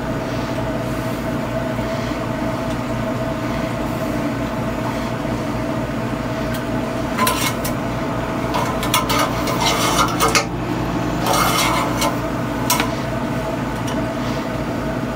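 Steady machine hum with an even low throb. Partway through come rustling and light clicks as an engine oil dipstick is wiped on an absorbent pad and handled.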